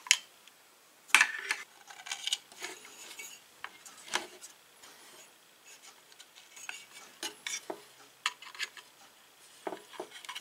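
Irregular small clicks and scrapes of needle-nose pliers and fingers working the wire leads of a replacement capacitor against a tube radio's metal chassis, while the part is bent and pushed into place. The sharpest clicks come about a second in and about four seconds in.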